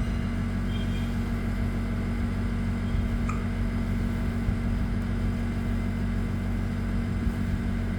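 Steady mechanical hum, unchanging throughout, with a faint brief sound about three seconds in.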